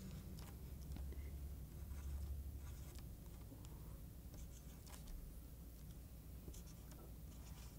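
Faint scratching of a pen writing on a paper strip on a tabletop, in small irregular strokes over a low, steady room hum.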